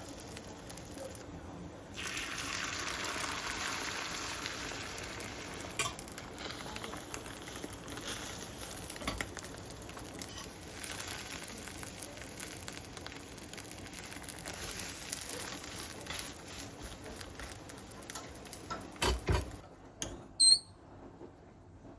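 Food sizzling in a frying pan as a steady hiss, with occasional small clicks of a utensil. Near the end come two louder knocks and a short high beep.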